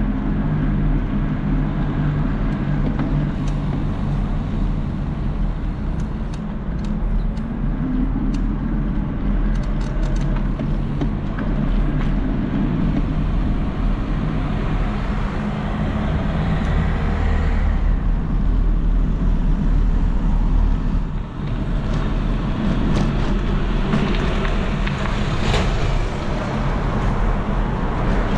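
Street traffic: motor vehicle engines running close by, with a steady low hum and scattered clicks. The traffic gets louder in the second half before a brief dip.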